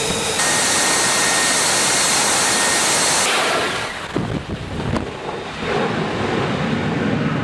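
F-35B jet engine running at high power, a loud hiss with a steady high whine, which cuts off suddenly about three seconds in. After that comes a lower, rougher jet rumble mixed with wind on the microphone as the jet takes off and climbs away.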